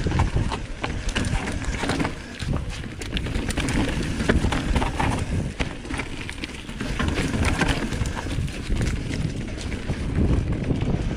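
Mountain bike riding a rooty dirt trail: an irregular run of clattering knocks as the bike rattles over roots and rough ground, over a heavy low rumble of wind on the camera microphone.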